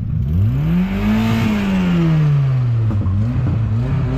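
Car engine revved hard: its pitch climbs sharply to a peak, falls back slowly, then rises again near the end.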